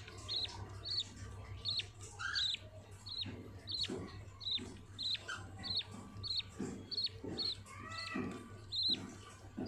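Budgerigars chirping: a run of short calls, each falling in pitch, repeating about twice a second, over a steady low hum.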